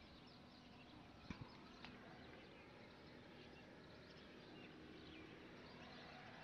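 Near silence: faint outdoor background hiss with a few soft clicks about a second and a half in.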